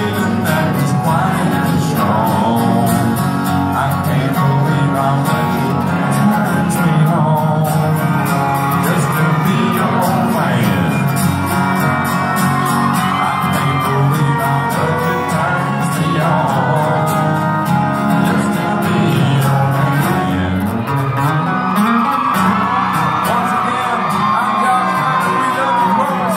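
Live country music: a man singing lead into a microphone over strummed acoustic guitars, heard in a large room.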